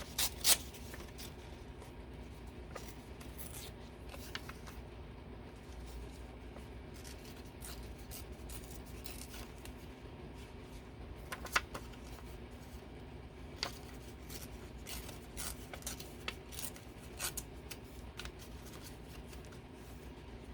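Scissors cutting paper, with scattered snips and paper rustling over a faint steady hum.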